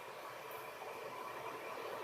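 Faint, steady background hiss with a weak hum, and no distinct events.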